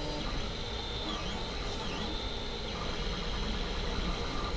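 Steady background noise: a low hum with a hiss, with no distinct events.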